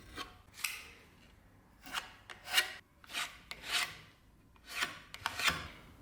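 Hand sanding or rasping strokes on old wood, about eight short irregular strokes.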